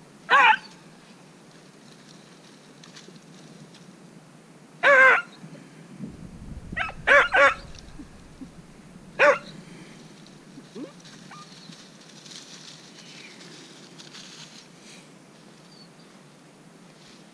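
A beagle barking and baying as it works a rabbit trail: short hound barks, one about half a second in, a cluster of four between about five and seven and a half seconds, and one more near nine seconds.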